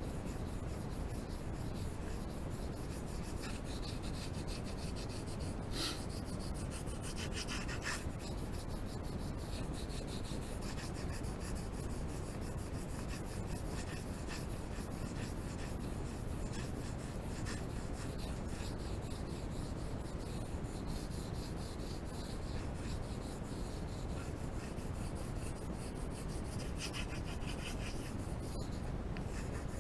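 Coloured pencil shading on paper: a steady, fast scratching of back-and-forth strokes, with a few sharper strokes standing out now and then.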